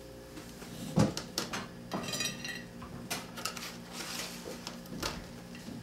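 A spatula clinking and scraping against a metal baking sheet as baked cookies are lifted off onto a plate, with one sharp knock about a second in, the loudest sound.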